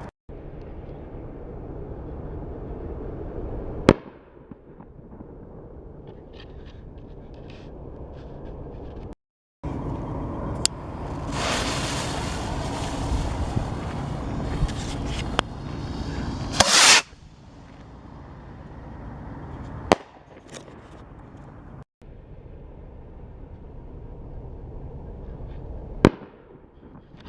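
Phantom Fireworks "Happy Rockets" consumer fireworks going off: a continuous fizzing hiss punctuated by sharp cracks every few seconds, with a louder stretch of hissing and crackling in the middle that ends in a strong burst.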